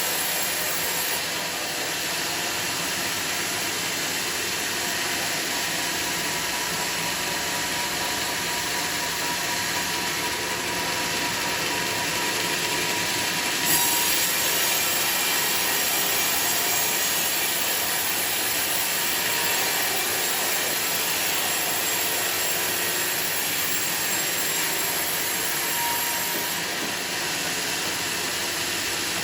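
Sawmill saw cutting teak timber: a steady, dense, hissing saw noise with a faint ringing tone, its character shifting slightly near the middle with a brief rise in loudness.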